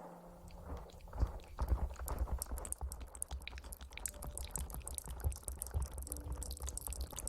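Close-miked wet crackling and squishing, typical of hair being lathered and rubbed during an ASMR hair wash, with soft low thuds underneath.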